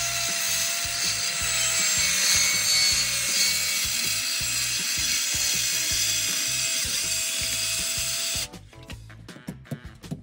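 Compact circular saw running and cutting through a wood-look deck joint tile: a steady high whine over the rough noise of the cut. The motor stops suddenly about eight and a half seconds in, followed by a few light knocks.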